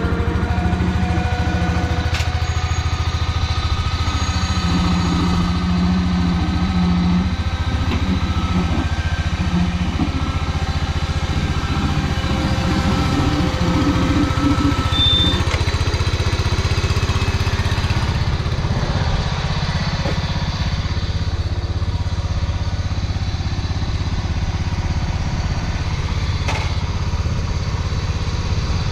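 1971 John Deere 140 riding mower's engine running steadily, a little quieter in the second half.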